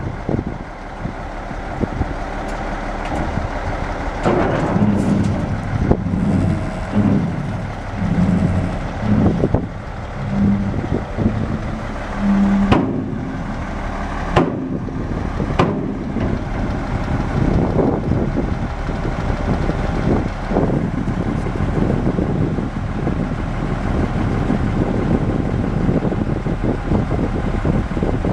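Dump truck's Caterpillar 3306 inline-six diesel running steadily while the raised dump bed comes down. Uneven low swells in the middle and a few sharp knocks at about 13, 14½ and 15½ seconds in.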